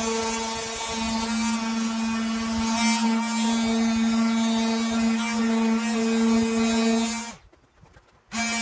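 Handheld electric detail sander running with a steady buzzing hum while sanding a plastic roof panel with 220-grit paper. Near the end it winds down, stops for about a second, then starts up again.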